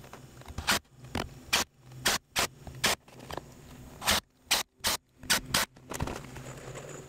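Cordless impact driver driving connector screws through steel hurricane-tie brackets into the wooden top plate, heard as about a dozen short rattling bursts in two quick runs with near-silent gaps between.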